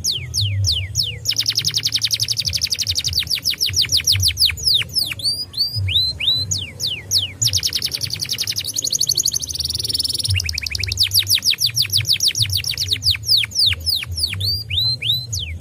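Domestic canary singing a continuous song of rapid trills: quick downward-sweeping whistled notes alternate with fast runs of repeated notes, with a lower, buzzier rattle about eight to ten seconds in.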